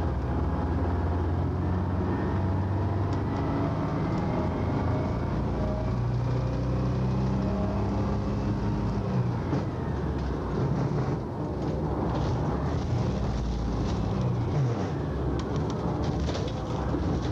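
Highway coach bus heard from inside the passenger cabin while cruising: a steady engine and road drone whose engine tones drift in pitch, with light rattles in the second half.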